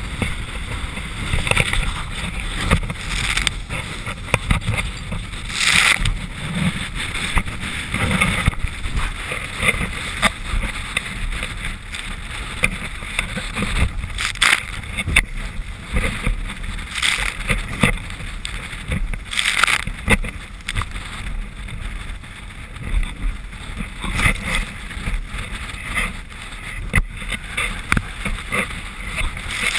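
Ranger Z20 bass boat running at speed across rough water: a constant rush of engine and wind noise, broken by many irregular sharp hits as the hull meets the chop.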